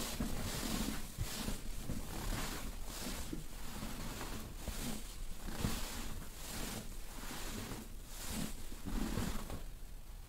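Rhythmic rubbing strokes of a hands-on massage, hands swishing over the body and clothing about two to three times a second, fading near the end.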